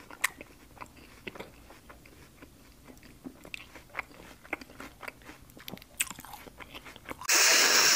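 A man chewing a mouthful of ginataang langka (soft jackfruit stewed in coconut milk), with many small wet mouth clicks and smacks. Near the end a loud rushing noise cuts in and drowns it out.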